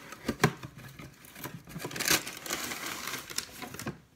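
Crinkling and rustling of a plastic pancake-mix bag being handled and opened, with sharper crackles about half a second and two seconds in.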